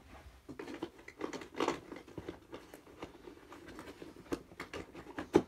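Hands rummaging among the tools in the pockets of a Veto Pro Pac XXL-F tool bag: rustling with a run of small clicks and knocks as items are put back and pulled out, a sharp click near the end.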